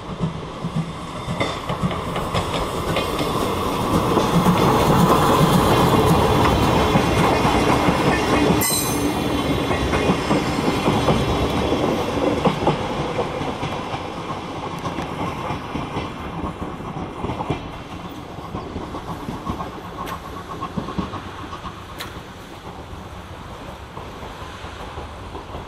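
C11 steam locomotive hauling two 14-series passenger coaches past, wheels clacking over the rail joints. It grows to its loudest about five to nine seconds in, then fades as the train moves away.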